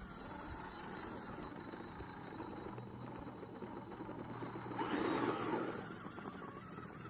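Small electric motor of a 1:12-scale RC off-road 4x4 running with a steady high-pitched whine that cuts off about six seconds in. Near five seconds a louder, brief burst of noise rises over it.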